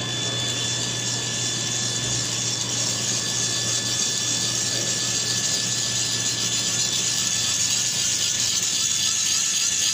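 Small AC generator spinning steadily, a continuous whir with a thin, steady high whine, growing slightly louder.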